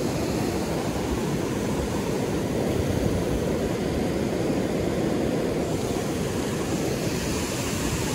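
Steady rush of river rapids.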